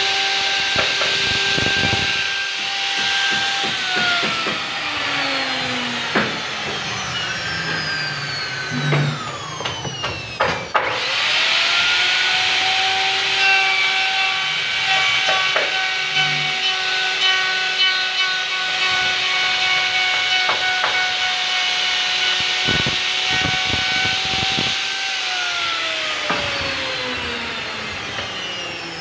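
DCK KMR04-12 electric wood router running with a steady whine over a hiss as its bit cuts flutes into a wooden board. The whine winds down a few seconds in, spins back up after a click about eleven seconds in, holds steady, and winds down again near the end.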